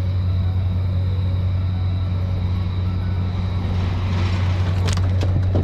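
Boat motor running steadily with a low hum, with a few sharp clicks near the end.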